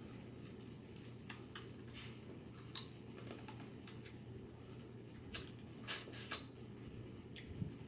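Close-miked eating sounds from a snow crab and shrimp mukbang: scattered short clicks and smacks of chewing, with a cluster about six seconds in. Under them runs a steady low hum, the distortion that the eater blames on her mic amplifier sitting too close.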